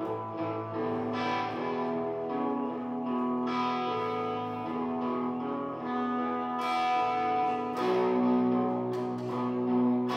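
Guitar playing a slow blues: chords strummed every second or two and left to ring, with steady held low notes under them.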